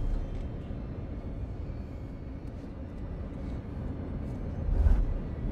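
Steady low rumble of an airliner cabin in flight, the drone of engines and air around the fuselage, swelling briefly near the end.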